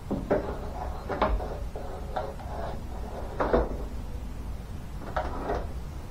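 Car door window glass being worked into the door and its track: a series of about six irregular clunks and scrapes of glass against the metal door frame.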